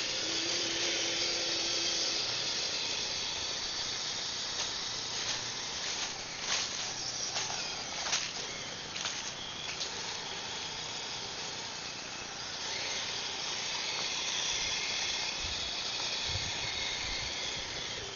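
Electric drive of a radio-controlled tracked snow machine running, a high whine and hiss from its motor and gears, with a run of sharp clicks and rattles from the tracks and blade in the middle and a few low thumps near the end.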